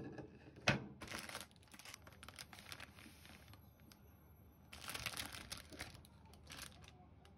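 A sharp knock as a wooden plate is set down on a stainless steel counter, then the crinkling and tearing of a plastic bread wrapper being opened, in two spells.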